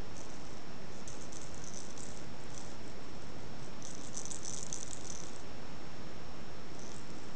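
Light, high-pitched rattling in several short clusters, the longest about four seconds in, over a steady hiss.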